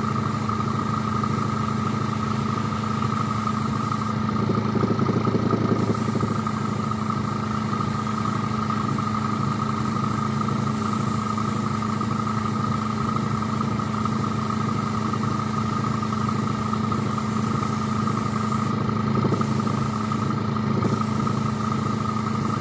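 Small airbrush compressor running steadily with a constant hum, while the airbrush hisses as paint is sprayed in light coats; the hiss stops briefly a few times between passes.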